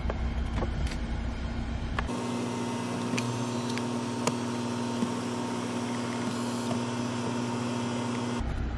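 Electric motors of the BMW 7 Series' power front passenger seat running, driving the seat and headrest back to their normal position. A steady motor hum starts about two seconds in and stops abruptly near the end.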